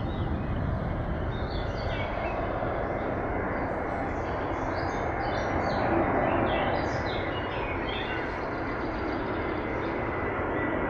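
Steady rumble of a jet airliner near the airfield, swelling a little about six seconds in, with small birds chirping over it.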